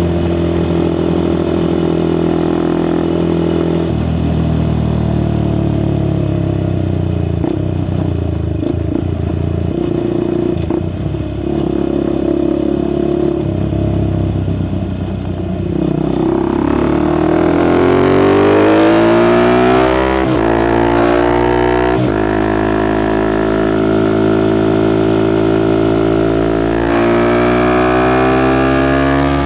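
Suzuki Gixxer SF 250's single-cylinder engine through a Yoshimura R11 exhaust, riding at a steady low note, then about sixteen seconds in revving up through the gears. The rising pitch breaks briefly twice at the gear changes before settling into a steady higher cruise.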